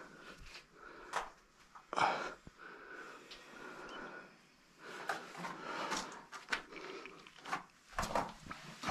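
Irregular scrapes, knocks and rustling of a person moving about and handling things in a small, tight rock cave, the loudest knocks about two seconds in and again near the end.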